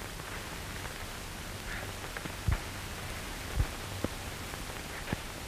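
Steady hiss of an old optical film soundtrack, with two low thumps about a second apart near the middle and a few faint clicks.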